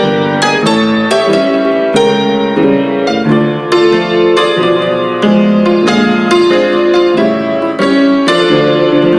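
Piano music played back through a Lo-D HMA-4500 MOSFET power amplifier into a pair of small bookshelf speakers, with quick, clearly struck notes one after another.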